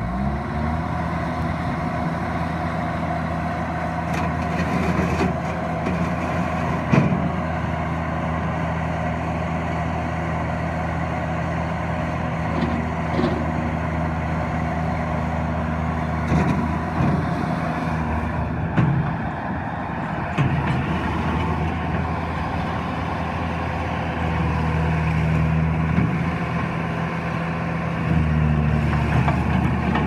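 Bobcat T300 tracked skid steer loader's diesel engine running steadily, with a few knocks scattered through. Near the end the engine note rises as the loader drives and turns on its tracks.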